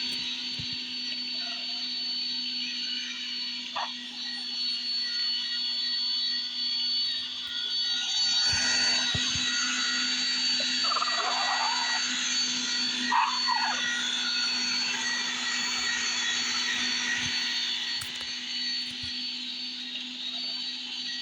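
Bissell SpinWave robot vacuum running: a steady whir with a constant low hum and a thin high tone. It gets louder for several seconds in the middle, with a few brief irregular sounds.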